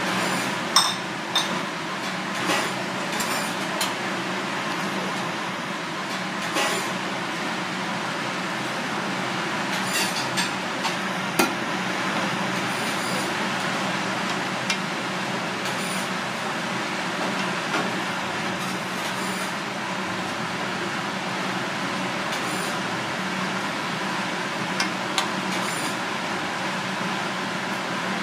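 A metal ladle clinking and scraping against a pan of simmering soup every few seconds, over a steady hiss with a low hum.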